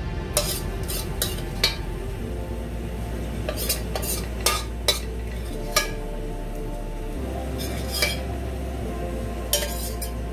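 Spoon clinking and scraping against a glass baking dish while creamy sauce is spread over lobster, with about a dozen sharp, irregular clicks.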